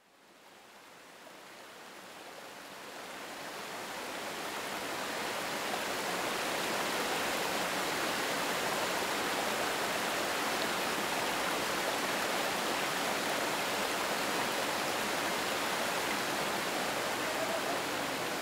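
Steady rush of flowing river water from the Gilgel Abay (Blue Nile), fading in over the first several seconds and then holding even.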